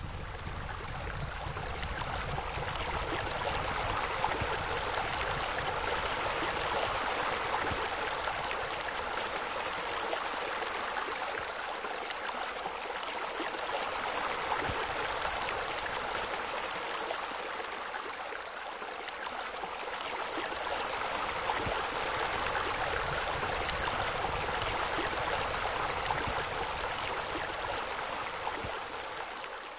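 Steady running water, a continuous rushing like a stream, with a low rumble underneath.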